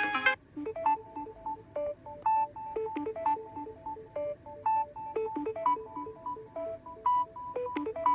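Samsung Galaxy A52 5G stock ringtone playing from the phone's speaker: a repeating melody of short electronic notes, about three to four a second, with a brighter, fuller chord at the very start.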